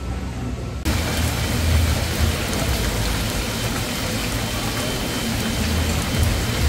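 Heavy rain pouring, a dense steady hiss with a low rumble underneath, which starts suddenly about a second in.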